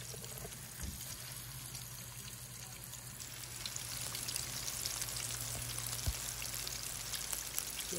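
Beer-battered crappie fillets deep-frying in a basket of hot oil: a steady sizzling crackle that grows a little louder after about three seconds.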